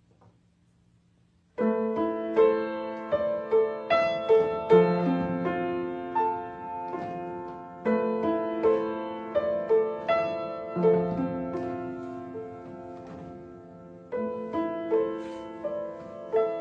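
Solo piano starting about a second and a half in after a brief hush: a slow piece of broken chords, each note struck and left ringing, with the phrase starting again more strongly about eight and fourteen seconds in.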